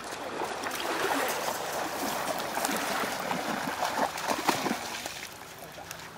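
A Dobermann splashing through shallow lake water: continuous rough splashing and churning water that dies down about five seconds in.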